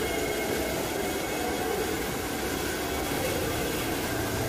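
A power tool running steadily with a continuous whir.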